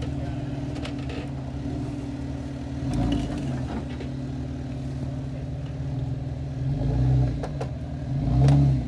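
Jeep Wrangler engine running at low speed as it crawls over rocks and roots, with throttle swells about three seconds in, near seven seconds and, loudest, near the end, and a few light clicks.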